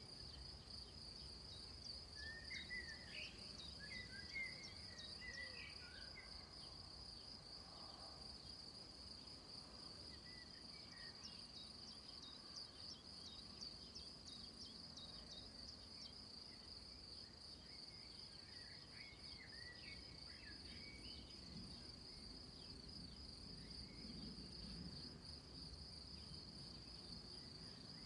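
Crickets trilling in a steady, continuous high-pitched chorus, with a few faint short chirps layered in about two seconds in and again around twenty seconds in.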